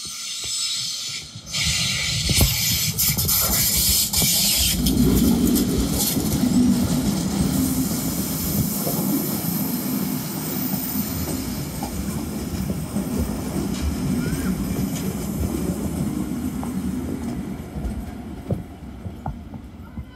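Tait electric suburban train passing close by, its wheels rumbling and clicking over the rails. A bright hiss comes in about a second and a half in and lasts about three seconds. The rumble is loudest from about five seconds in and fades gradually as the train draws away.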